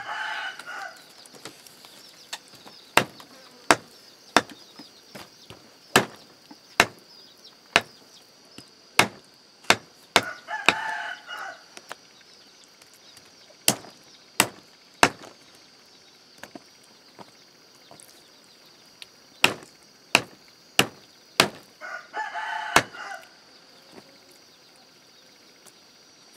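A large knife chopping meat and bones on a wooden stump block, with sharp, irregularly spaced strikes, sometimes several in quick succession. A rooster crows three times: at the start, about ten seconds in, and about twenty-two seconds in.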